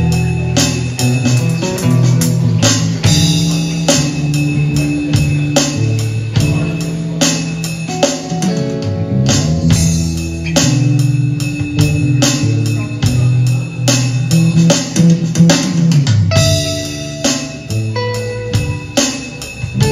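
Live instrumental rock jam: an electric guitar, an electric bass and an electronic drum kit playing together, with a strong bass line under a steady beat.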